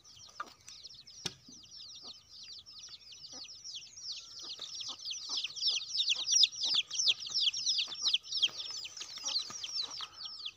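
Dense, rapid high-pitched chirping of small birds, about ten notes a second, each note falling in pitch, growing louder from about four seconds in. A few faint knocks sound under it.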